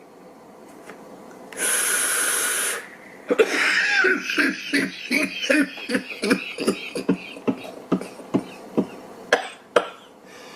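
A man's hard coughing fit after a strong hit from an e-cigarette. About a second and a half in there is a steady, hissing draw lasting about a second. Then come around fifteen short, harsh coughs at roughly three a second, with two sharper coughs near the end.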